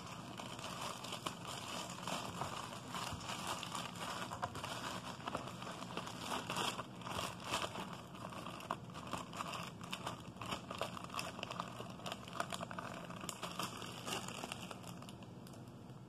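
Plastic wrapping and a zip-top plastic bag crinkling and rustling in hands as packaging is unwrapped, in quick irregular crackles that ease off near the end.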